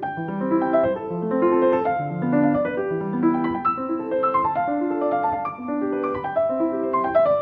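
Piano music: a steady run of distinct notes moving up and down in a flowing melody.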